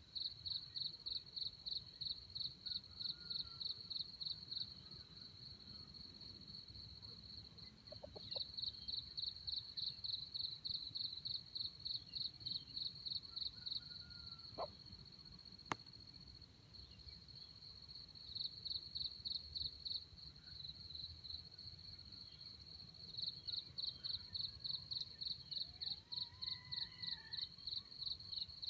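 An insect singing a high, steady buzz that in some stretches beats rapidly at about four pulses a second and in others runs unbroken. A single sharp click about sixteen seconds in, and a few faint bird calls.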